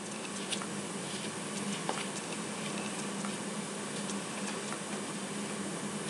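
Hoover Dial-A-Matic upright vacuum cleaner running steadily on carpet: an even motor hum under a hiss, with a few faint ticks.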